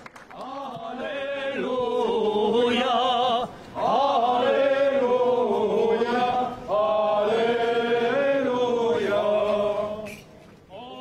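A man chanting an Armenian Apostolic liturgical prayer from a prayer book in long, held phrases with a wavering pitch. He pauses briefly twice, and the chant fades out near the end.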